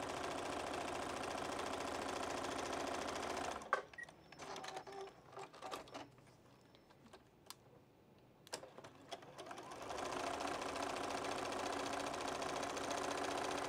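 Juki sewing machine stitching pinned cotton patches along a marked seam line, running at a steady speed. It stops after a few seconds, a few light clicks and handling sounds follow, and it starts stitching again about ten seconds in.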